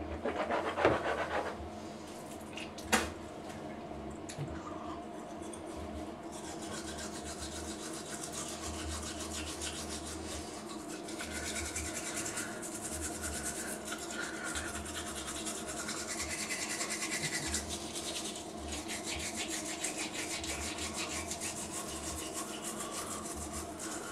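Manual toothbrush scrubbing teeth with toothpaste: a fast, continuous back-and-forth rasping. At the start there is a brief sound of water from a glass, then a sharp knock about three seconds in.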